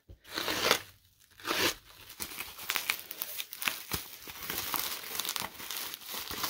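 Bubble wrap and plastic film being torn and pulled off a cardboard mailer by hand, crinkling and crackling: two short tears in the first two seconds, then steady crinkling.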